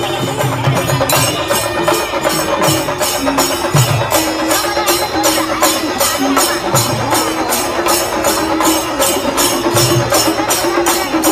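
Loud traditional festival music led by percussion: an even rhythm of sharp, jingling strikes about three a second, with low drum beats and sustained notes under it.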